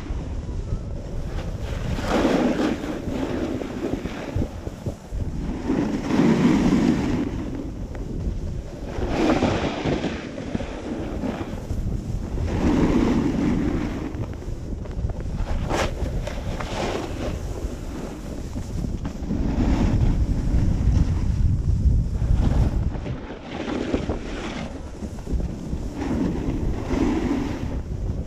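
Wind rushing over the microphone and a snowboard's edge scraping through snow, the hiss swelling with each turn about every three to four seconds. A single sharp click about halfway through.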